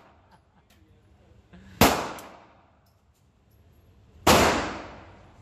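Two pistol shots about two and a half seconds apart, each a sharp crack followed by a tail that dies away over about a second.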